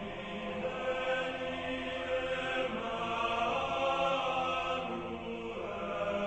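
Film score music: a choir chanting long held notes.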